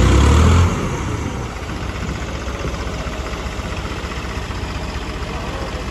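Diesel engines of a New Holland 3630 and a John Deere 5210 tractor: a short loud rev in the first second that falls back, then steady idling.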